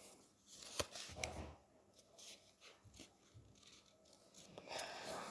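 Faint rustling and creasing of a sheet of A4 paper being folded by hand, with a few light taps, the sharpest about a second in.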